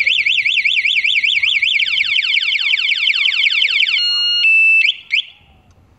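Aftermarket motorcycle alarm siren set off in panic mode from its key fob. It sounds a fast warbling tone, then rapid falling sweeps over it, then a few steady beeps and short chirps before it cuts off about five seconds in.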